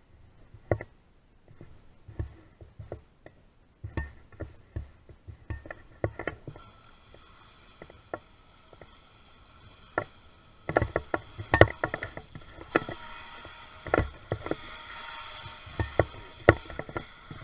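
Battery-powered electric motor and water jet of a small aluminium RC jet boat whining with several steady high tones, starting about six seconds in and getting louder after about ten seconds as the boat spins and drifts. Many sharp knocks and clicks run through the whole stretch.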